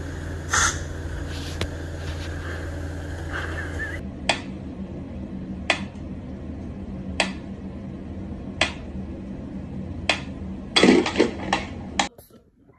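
Steady low hum with a single click, then a mechanical pyramid metronome ticking slowly, one tick about every one and a half seconds. Near the end comes a quick cluster of several louder knocks.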